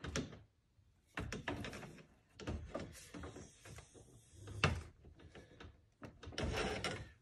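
Hard plastic and metal parts scraping and knocking in a car's engine bay, a run of rough scrapes and clunks with short pauses and one sharper knock about two thirds of the way through, as the electric cooling fan is worked down into place past the lower radiator hose with a pry bar.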